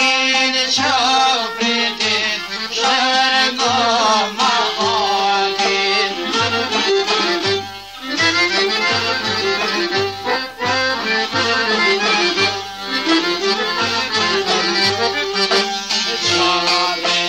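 Albanian folk music from a vinyl EP: an accordion carries the melody over a steady low beat, with a brief drop in loudness about eight seconds in.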